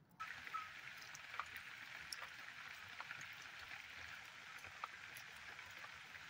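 Steady rain, a faint even hiss with scattered drips ticking through it.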